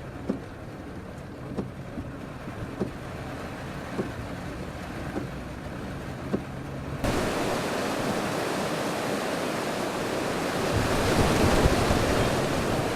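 Steady road and cabin noise from a car driving on wet roads, with a faint tick about once a second. About seven seconds in, it cuts suddenly to louder, steady wind buffeting the microphone.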